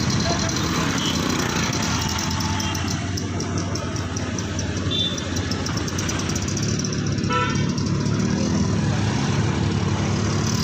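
Traffic and riding noise from a moving motorbike or scooter: its engine running steadily under a rush of wind and passing vehicles, with brief horn toots about halfway through.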